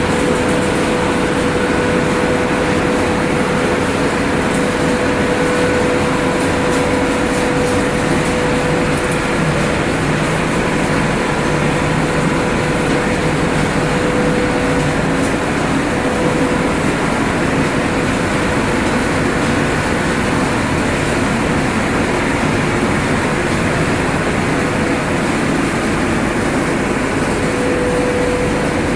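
Machinery of a refrigerator dismantling and recycling line running steadily: a continuous loud mechanical rumble with a steady hum that drops out about halfway through and returns near the end.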